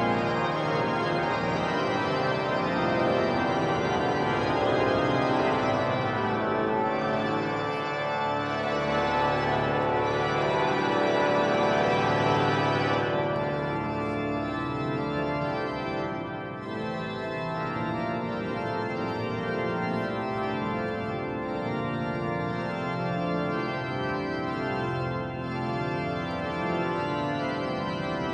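Cathedral pipe organ playing full sustained chords, the sound thinning in its upper range to a softer registration about halfway through.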